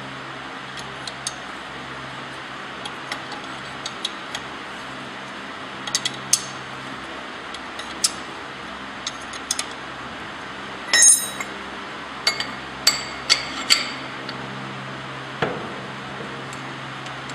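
Metal parts of a shuttleless wire mesh loom clinking and knocking as they are handled and fitted by hand: scattered light taps, with the loudest group of clinks about two-thirds of the way through. A steady fan-like hum runs underneath.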